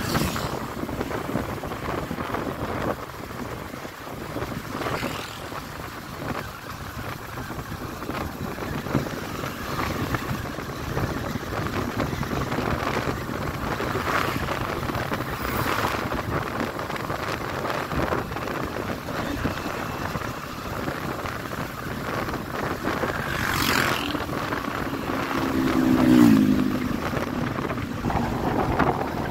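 Wind buffeting the microphone over the running engine and road noise of a moving motorcycle. Near the end a passing vehicle's engine swells and drops in pitch as it goes by.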